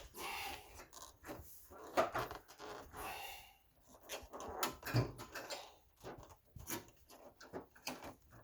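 Hard plastic engine-bay trim panel being worked by hand around a misplaced snap-in tab: irregular scraping, rubbing and knocking, with sharper knocks about two and five seconds in.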